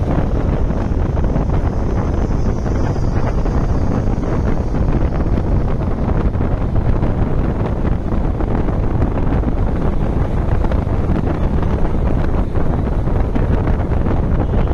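Steady rush of wind on the microphone from a moving bus, over the bus's engine and road noise.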